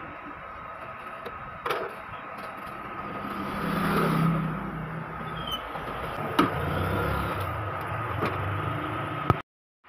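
A motor vehicle's engine passes by, swelling and fading about four seconds in, over a steady background hum. Several sharp clicks of plastic come from the printer's scanner unit being handled and closed.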